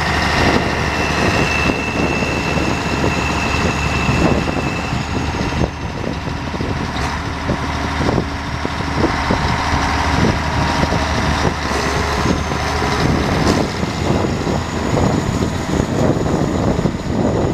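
Diesel engine of a 1987 Case IH 4894 four-wheel-drive tractor running steadily as the tractor drives across a field.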